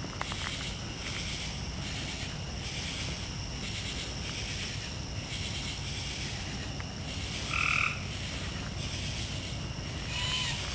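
Night chorus of frogs calling in steady rhythmic pulses. A short, louder call stands out about three-quarters of the way in, and a brief rising-and-falling call comes near the end.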